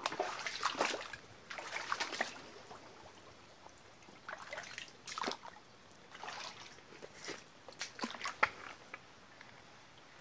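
Feet wading through shallow floodwater in a swamp forest: irregular splashes and sloshes from the steps, in uneven bunches with short pauses between, dying away near the end.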